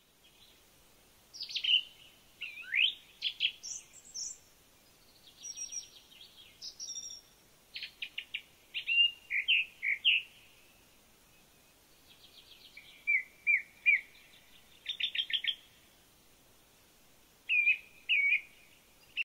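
Several birds calling in turn: short whistled chirps, quick up-and-down notes and rapid runs of clicking notes, separated by short quiet pauses.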